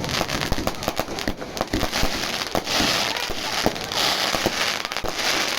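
Fireworks going off: rapid cracks and pops, with loud spells of crackling and hiss from the bursting shells from about halfway in.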